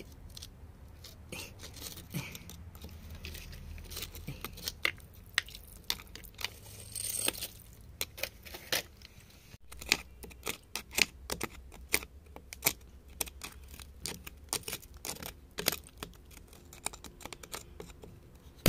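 A metal chisel picking and scraping at crumbly clay and gravel around an embedded crystal, giving many irregular small clicks, crackles and scrapes.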